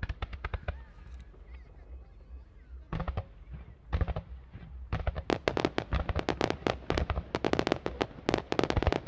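Fireworks bursting: a quick cluster of bangs, a lull with a few scattered reports, then from about five seconds in a dense, rapid barrage of bangs and crackles.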